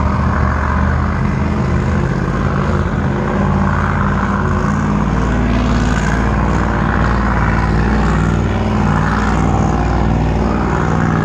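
Twin-supercharged boat engine running out on the water, a loud, steady low drone.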